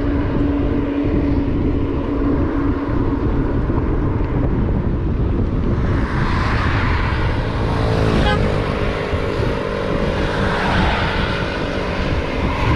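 Steady wind rumble on the microphone and road noise from riding along a road, with a steady engine-like hum. Another vehicle passes, loudest about six to eight seconds in, its pitch dropping as it goes by.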